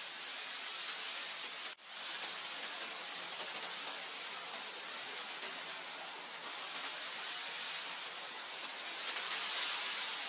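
Wind blowing through grass: a steady hiss that swells a little near the end, with a momentary dropout just under two seconds in.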